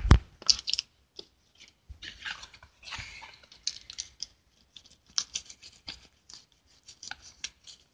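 Knife cutting and prying at a plastic seal package, giving irregular small clicks and crinkling of the plastic.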